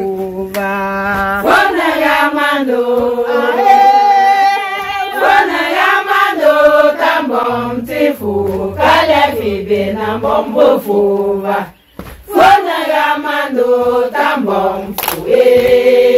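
A group of women singing together in unison, with a short break in the song about twelve seconds in.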